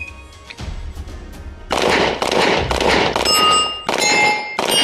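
A string of rapid pistol shots from an open-class .38 Super competition pistol with a compensator, starting about a second and a half in. Each shot is followed by the ringing of hit steel targets, which hold clear ringing tones.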